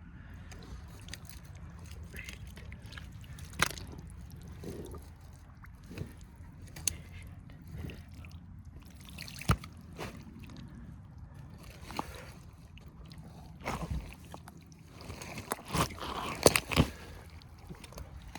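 Muck Arctic rubber boots squelching and sucking in wet peat-bog mud, a wet slurp every second or two, with a louder flurry of squelches near the end.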